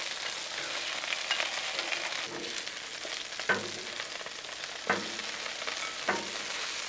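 Chicken wings sizzling in oil on a Blackstone flat-top griddle, with three short clacks of metal tongs a little over a second apart in the second half as the wings are lifted into a glass bowl.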